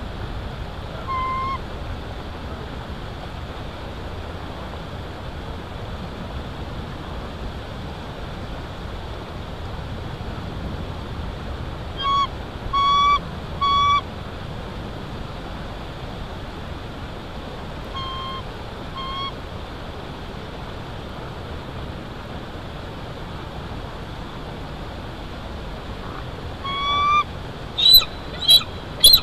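Bald eagles giving short, high, squeaky call notes over a steady background hiss: a single note at first, later a group of three and a pair, then a quicker, louder run near the end. These are warning calls at ravens circling the nest.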